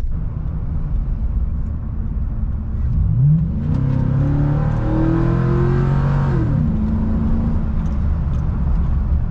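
Chevy 5.3-litre V8 with a cheap aftermarket 4-inch cold air intake, running steadily, then revving up hard about three seconds in. It holds high revs with a loud rush of intake noise for about three seconds, drops back around six and a half seconds in, and runs steadily again.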